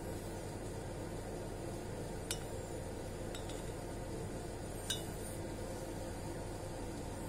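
A few light clinks on a glass beaker, about two seconds in, again at three and a half, and a louder one about five seconds in, over a steady background hiss.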